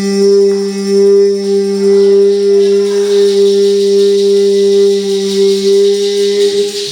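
Keyboard holding a steady two-note chord with a sustained, organ-like tone, with faint higher notes coming and going above it; it cuts off suddenly near the end.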